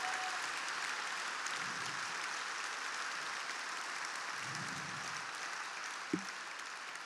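Large audience applauding in a hall, the clapping slowly dying down toward the end, with a brief thump about six seconds in.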